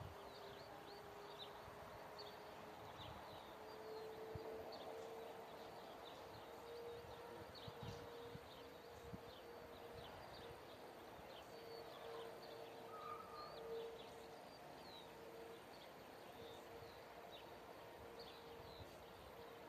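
Near silence: faint rural ambience with scattered short, high bird chirps and a faint steady hum underneath.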